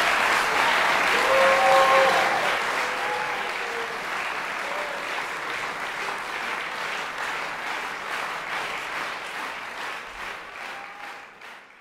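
Concert audience applauding at the end of an a cappella song, loudest at first and slowly dying away, with a voice or two calling out briefly in the first few seconds.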